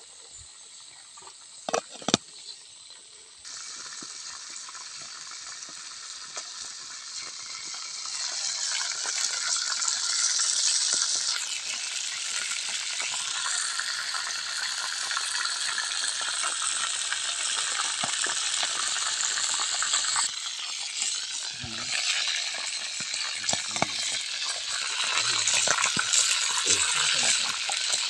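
Eel pieces deep-frying in hot oil in a wok over a wood fire: a dense crackling sizzle that starts about three seconds in and grows louder, with a few knocks near the end.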